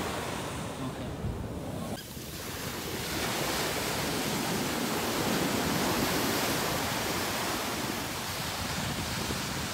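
Ocean surf breaking and washing up a sandy beach. It is duller for the first couple of seconds, then a steady hiss of breaking waves fills in from about three seconds in.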